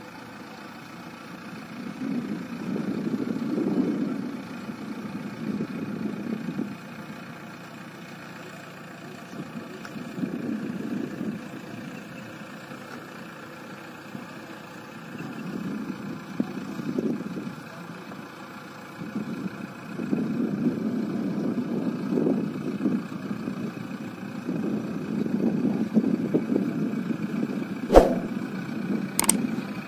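JCB 3DX backhoe loader's diesel engine running and revving up in repeated swells of a few seconds each while the front loader lifts a heavy pipe. A sharp click near the end.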